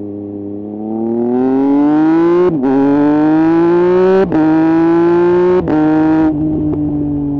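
Triumph Speed Triple 1050 RS three-cylinder engine through a Mivv exhaust with the dB killer removed, pulling hard as the revs climb. Three quick upshifts each give a brief cut in the sound and a drop in pitch, as with a quickshifter. Near the end the throttle rolls off and the engine settles to a lower, quieter note.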